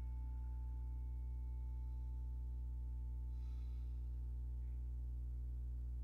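Steady low electrical hum in a quiet room. A faint high ringing tone fades away over the first few seconds, and there is a soft brief rustle about three and a half seconds in.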